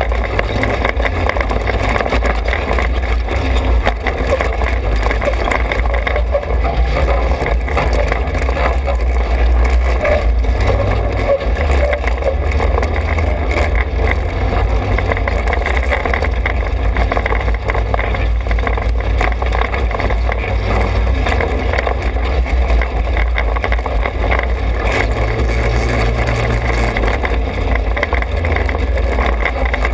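TrailMaster 200 XRX go-kart engine running steadily while driving along a dirt trail, with a constant rushing noise over it.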